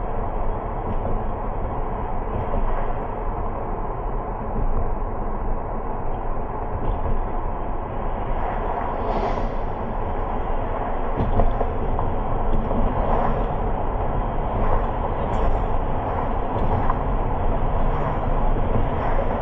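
Steady rumble and road noise of a moving car, with faint brief swishes every second or so in the second half.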